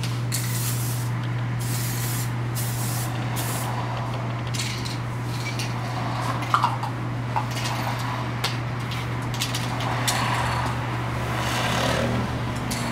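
Aerosol spray can hissing in repeated short bursts as it is sprayed over a plastic car headlight lens, with a steady low hum underneath.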